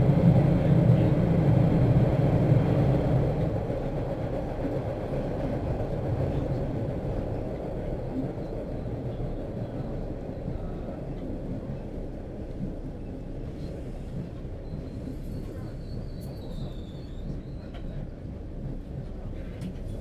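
Metro train ride heard from on board: a loud low rumble that dies down from about three seconds in, leaving a steady, quieter rolling noise.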